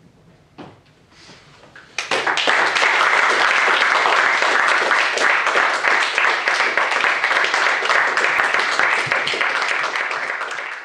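Audience applauding: a soft knock, then clapping breaks out suddenly about two seconds in and continues thick and steady, starting to fade near the end.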